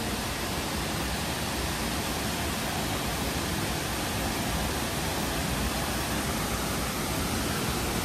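Waterfall dropping into its plunge pool: a steady, even rush of falling water.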